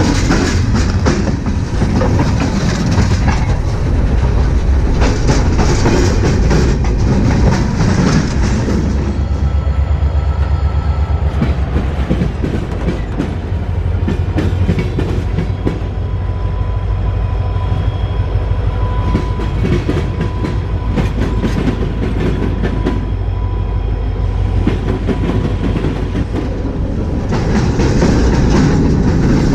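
Cars of a Norfolk Southern local freight train rolling over the rails, their wheels clacking steadily. For about the first nine seconds and again near the end it is a loud, close rumble from directly beneath the passing cars. In between it is lighter, with the wheel clicks standing out.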